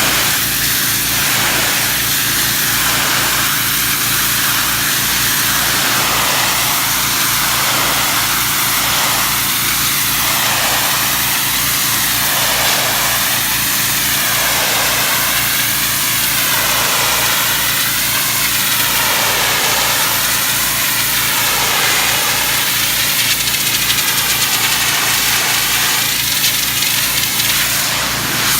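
Pressure washer's engine running steadily under the hiss of a high-pressure water spray hitting brick. The hiss wavers in a slow sweep about every two seconds.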